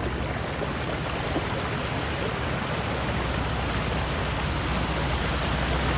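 Steady rush of river water at a shallow crossing, with the low rumble of a Nissan Patrol GU's engine as it crawls slowly through the ford.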